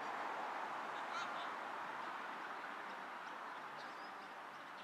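Steady open-air hiss at a soccer pitch, slowly fading, with a few short high chirps about a second in and again near the end.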